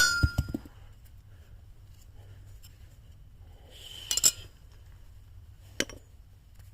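Metal handling sounds from a Higonokami folding knife: a short burst of clinks about four seconds in and one sharp click near six seconds, over a faint steady hum. The last notes of background music ring out at the start.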